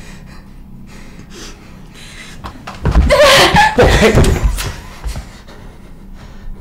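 A loud nonverbal outburst from a person's voice, lasting about two seconds and starting about three seconds in.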